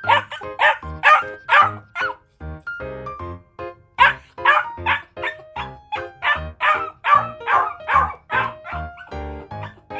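A dog barking repeatedly, about two barks a second, over background music with a steady beat; the barking pauses for a moment about two seconds in, leaving only the music.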